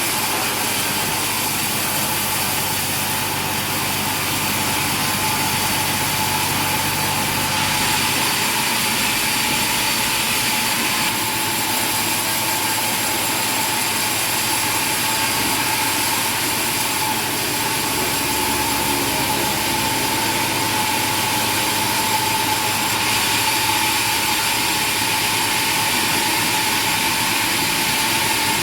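Machinery running steadily, with a constant high whine over a wide even noise and a lower drone that shifts in pitch a few times.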